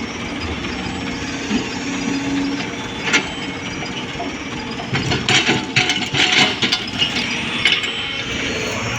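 Excavator engine running steadily, with a single knock about three seconds in, then a couple of seconds of clattering as a bucketload of red soil and rock drops into the steel bed of a mining dump truck.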